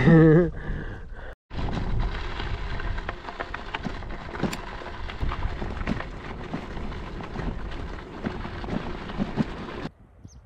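Wind buffeting the camera's microphone while riding a tandem bicycle, with tyres crunching and clicking over a gravel track; it cuts off suddenly near the end.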